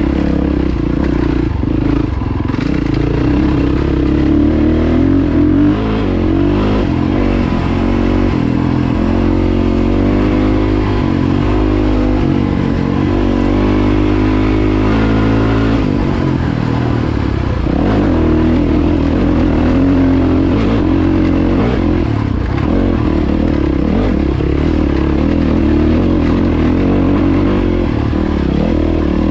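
Yamaha WR450F dirt bike's single-cylinder four-stroke engine running steadily under way, heard from on the bike. The revs rise and fall with the throttle through the middle stretch, then settle.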